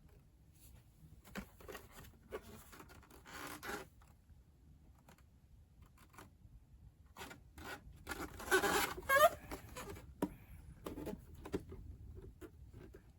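Scattered rustling, scraping and clicking handling sounds, with a louder burst about eight and a half seconds in.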